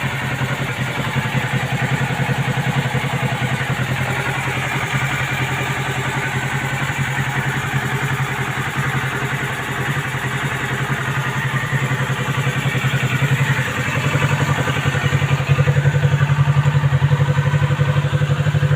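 Kawasaki Ninja 650's parallel-twin engine running steadily through its stock exhaust, growing somewhat louder in the last few seconds.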